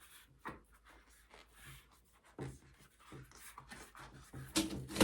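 Bicycle inner tube, lightly inflated, being pushed by hand into the tyre: faint rubbing and scuffing of rubber, with a few soft taps and a louder knock near the end.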